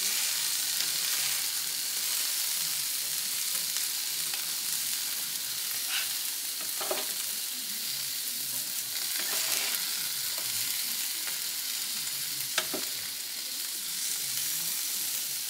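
Egg and a shrimp-and-vegetable filling sizzling steadily on an electric flat-top griddle. Spatulas scrape and tap on the griddle surface a few times as the filling is moved onto the egg.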